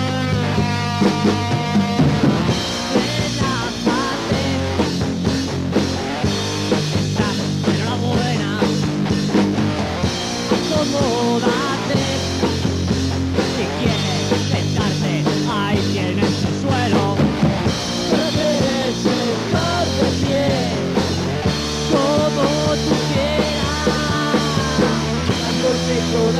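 Punk rock band playing an instrumental break: a lead guitar line with bending notes over a steady bass and drum kit, with no singing.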